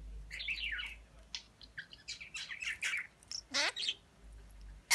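Budgerigar chattering: a continuous run of quick chirps and warbled whistles, with a louder falling call about three quarters of the way through.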